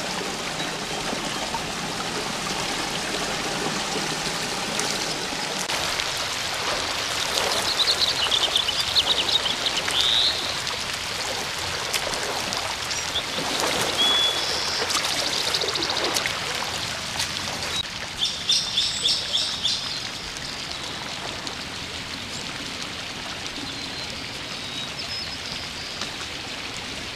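Steady rush of flowing water, with birds chirping in short rapid trills several times.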